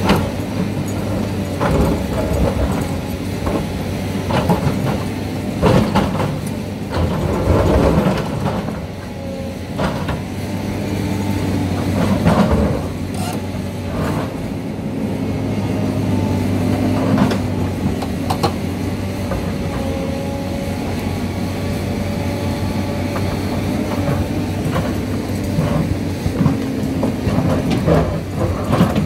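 SANY hydraulic excavator's diesel engine running steadily under load while its steel bucket digs into rocky soil, with repeated sharp knocks and scrapes of the bucket against rock and earth.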